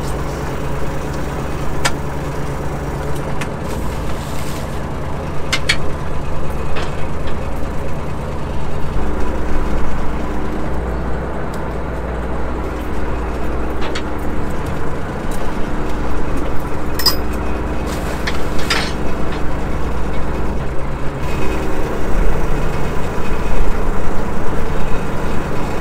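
Fishing boat's engine running steadily, its note changing about a third of the way in and again near the end, with a few sharp clicks and knocks on deck.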